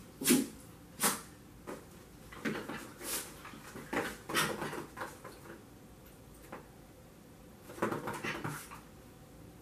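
Scattered short thumps and rustles from a Yorkshire terrier puppy scampering about on and around a yoga mat on carpet, mixed with a person's movements on the mat.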